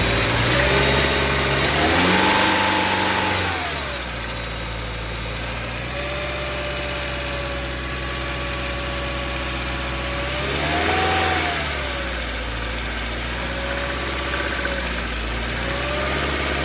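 2014 Subaru Forester's flat-four engine idling, with the throttle blipped so it revs up and settles back twice, about 2 seconds in and again about 11 seconds in. The engine is one diagnosed with piston slap at 208,000 miles.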